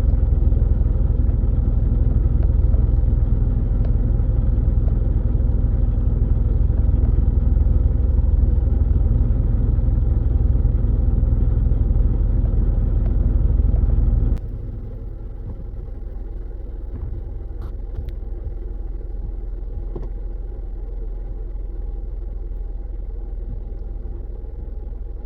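Steady low road and engine rumble of a car being driven. About halfway through it drops suddenly to a quieter rumble with a few faint clicks.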